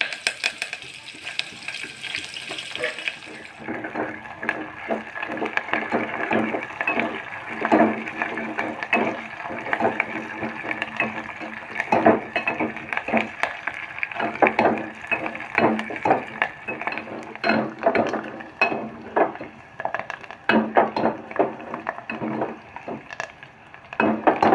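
Onions and curry leaves frying in hot oil for a sambar tempering: a steady sizzle, with frequent clinks and scrapes of a spoon stirring against the pan. The sizzle is brighter and hissier for the first few seconds.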